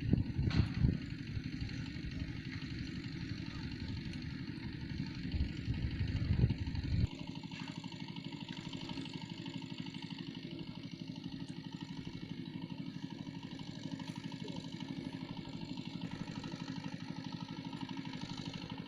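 A small engine running steadily with a fast, even pulsing; its low rumble drops away abruptly about seven seconds in, leaving a thinner steady running sound.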